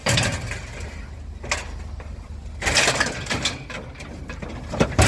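Scrap being handled for loading: several knocks and scraping noises, the loudest clusters around three seconds in and near the end, over a steady low rumble.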